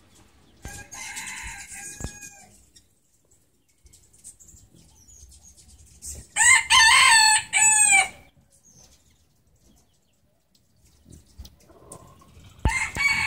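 A rooster crowing three times: a fainter crow about a second in, a loud crow of several arched notes around the middle, and another starting near the end.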